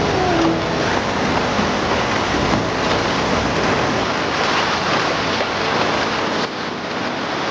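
Steady rushing of river water, an even hiss-like noise with no break.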